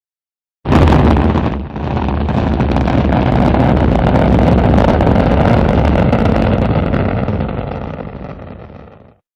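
Rocket engines at launch: a loud, deep rumbling roar that starts abruptly, dips briefly about a second in, then holds steady and fades away near the end.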